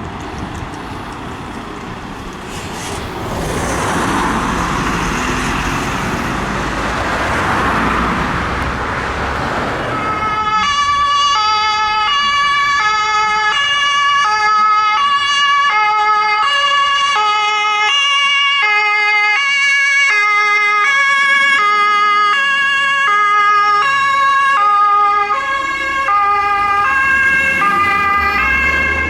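Road noise of a passing vehicle, then, about ten seconds in, a German fire engine's two-tone siren (Martinshorn) starts sounding loudly close by. It alternates a high and a low note, each lasting just under a second.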